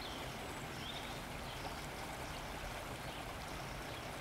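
Steady rushing of a shallow stream flowing, with a few faint high chirps near the start.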